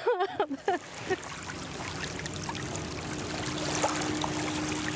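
Water splashing and trickling from the oars and along the hull of a wooden rowboat being rowed, with a faint steady hum underneath.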